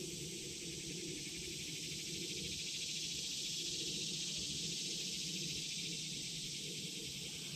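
A steady, high, even insect chorus, like crickets, over a constant low rumble.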